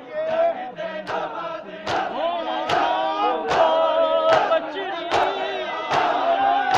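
Many men's voices chanting a noha together, over loud slaps of open-palm chest-beating (matam) in unison. The beat starts about a second in and keeps a steady rhythm of about one slap every 0.8 seconds.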